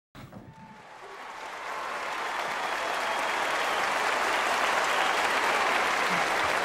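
Audience applause, swelling up over the first couple of seconds and then holding steady.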